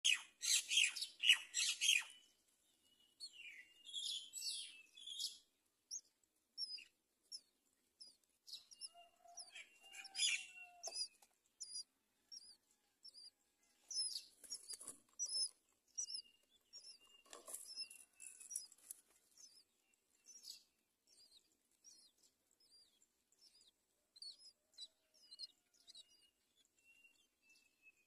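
Nestlings begging in the nest: a steady run of short, high chirps, loudest and densest over the first two seconds, with an occasional thin held whistle.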